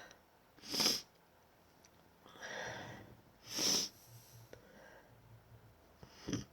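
A person with a head cold sniffling and breathing after a sneeze: four short, breathy sniffs and breaths, a second or so apart at first, then one more near the end.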